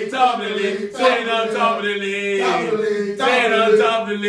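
A group of men chanting a football chant, singing in long drawn-out notes that rise and fall.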